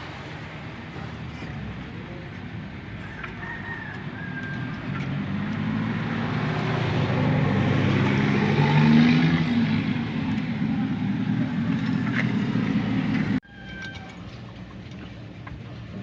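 A motor vehicle's engine running close by, getting louder to a peak about nine seconds in and easing a little, then cut off suddenly about thirteen seconds in.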